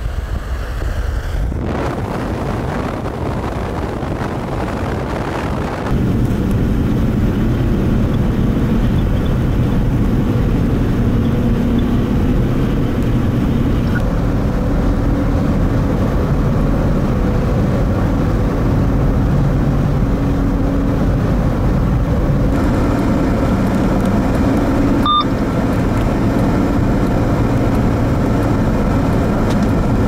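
Snow plow truck passing close at the start, then steady engine and tyre noise heard from inside a moving vehicle driving on a snowy highway, with a brief beep near the end.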